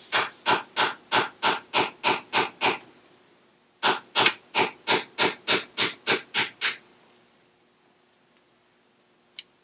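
Steady hammer taps on a copper punch, about three a second, drifting a Glock rear sight sideways out of its dovetail. The tapping pauses for about a second around three seconds in, starts again, and stops about seven seconds in.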